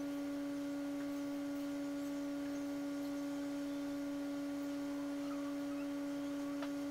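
A steady electronic tone held at one pitch, with a few fainter overtones above it and no change throughout.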